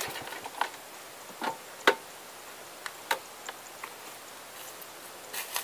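A small motorbike engine cuts off right at the start. Then come about eight sharp clicks and taps at irregular intervals over a faint outdoor hiss, the loudest about two seconds in.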